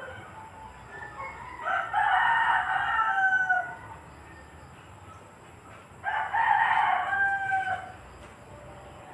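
Two long animal calls, each about two seconds, one about two seconds in and another about six seconds in, each ending on a falling tone.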